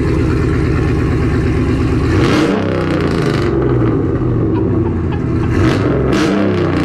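A 2011 Ram 1500 pickup's 5.7-litre Hemi V8 idling with a low, steady note through a loud exhaust, then revved twice: once about two seconds in and again near the end, each rev rising and falling back to idle. Its owner calls it "a little loud".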